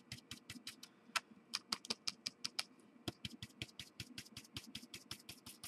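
Stipple brush pounced rapidly onto cardstock through a stencil, a quick, uneven patter of soft taps, about eight a second, applying dry Gelatos colour.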